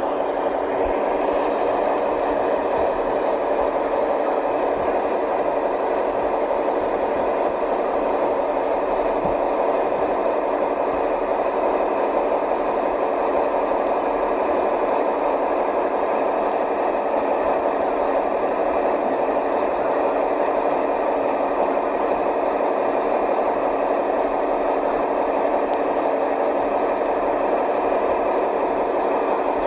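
2018 New Flyer XD40 transit bus with its Cummins L9 diesel engine, running steadily with no change in engine note.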